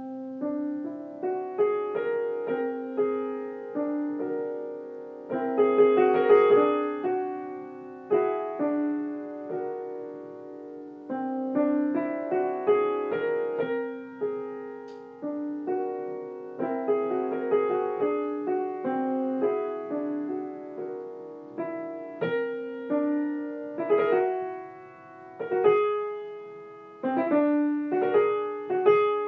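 Solo piano improvising on the whole-tone scale: notes and chords in the middle register struck in loose phrases and left to ring and die away, with louder chords about six seconds in and again near the end.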